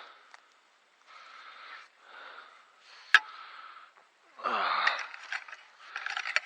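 A man breathing hard while digging, a run of breaths about a second each. There is a sharp click about three seconds in, and about four and a half seconds in comes a louder voiced breath out, falling in pitch.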